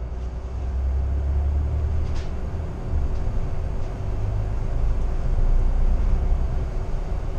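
Ride noise inside the upper deck of a moving double-decker city bus: a steady low engine and road rumble with a faint steady hum over it, and a single light click about two seconds in.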